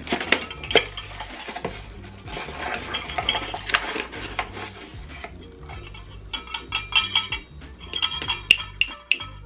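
Nested stainless steel measuring cups clinking and scraping while flour is scooped from its bag and tipped into a plastic mixing bowl, with many short clicks and light knocks.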